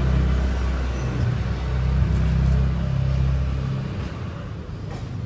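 A steady low rumble that fades out about four seconds in.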